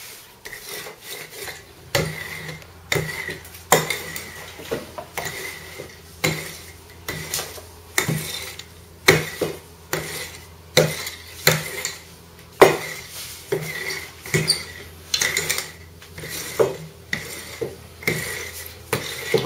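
A handled wooden rolling pin rolling out a large sheet of dough on a wooden tabletop, knocking sharply about once a second as it is pushed and pulled back and forth. The knocks start about two seconds in.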